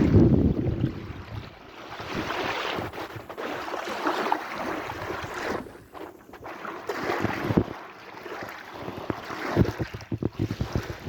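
Sea waves washing in and falling back, a surge every few seconds, with wind buffeting the microphone in quick low thumps near the end.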